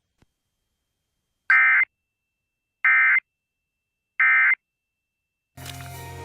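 Emergency Alert System end-of-message (EOM) data bursts: three short bursts of data tones a little over a second apart, closing the Amber Alert. Music comes in near the end.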